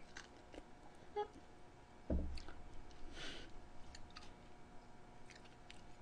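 Faint chewing and wet mouth clicks from someone eating grilled pig's trotter meat, with a soft low thump about two seconds in.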